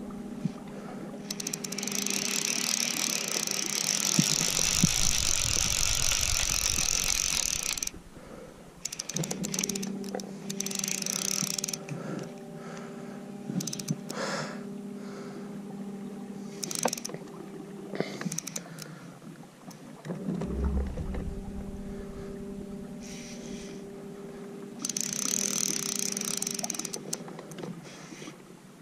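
Fly reel's clicking drag ratcheting in several bursts as the hooked carp pulls line off, the longest lasting several seconds. A steady electric motor hum runs underneath.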